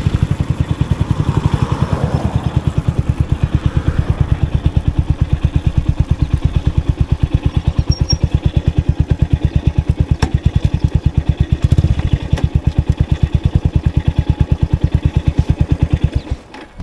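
Motorcycle engine running, with a steady, rapid pulsing of about ten beats a second. It cuts out near the end.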